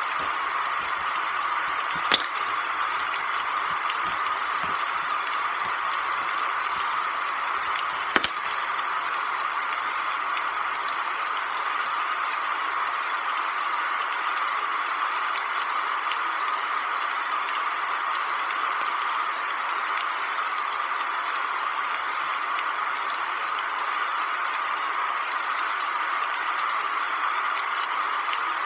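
Steady, even hiss with no pitch to it, broken by two short sharp clicks, one about two seconds in and one about eight seconds in.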